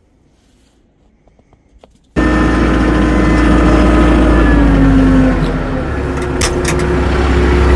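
A few faint clicks, then about two seconds in a tractor engine cuts in abruptly and loud, running steadily, its note easing down a little about three seconds later.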